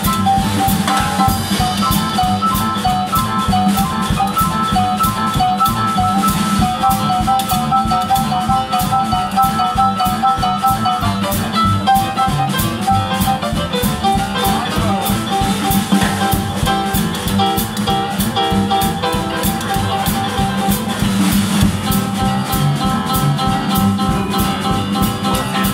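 Live jazz trio of piano, upright double bass and drum kit playing together, the drums keeping a steady, busy beat on cymbals and snare under the piano and walking bass.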